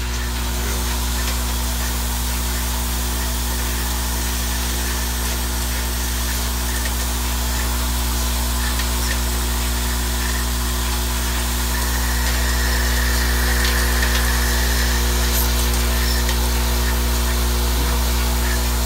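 Vibratory bowl feeder running: a steady electric buzz with a dense rattle of small tubes shuffling around the bowl and along the feed track, a few light clicks, growing a little louder about twelve seconds in.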